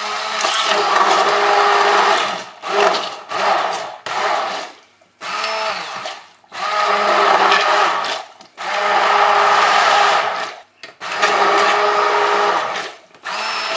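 Immersion (stick) blender pureeing chunks of cooked zucchini and onion in broth in a stainless steel pot. The motor runs in bursts of one to two seconds, stopping and restarting several times.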